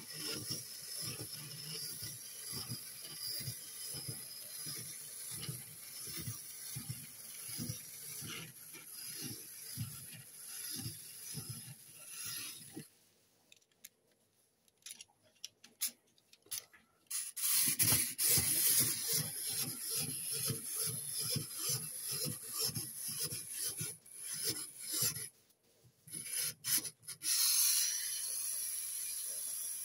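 Zoids Command Wolf (Zarwolf) walking toy running: its mechanism whirs steadily with a rhythmic ratcheting clatter of gears and legs, about two beats a second. It stops twice for a few seconds with only scattered clicks. Near the end the clatter gives way to an even whir as the toy is lifted.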